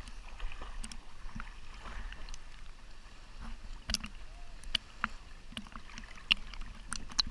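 Kayak sounds: scattered light knocks and clicks against the boat over faint water noise, mostly in the second half.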